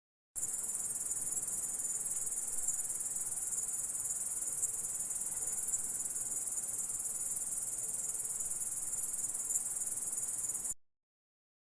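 Grasshopper stridulation: a steady, unbroken high-pitched buzzing trill that starts just after the opening silence and cuts off abruptly about a second before the end.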